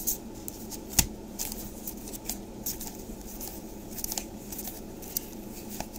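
Trading cards being handled and flipped through: light scattered ticks and slides of card stock with one sharp click about a second in, over a low steady room hum.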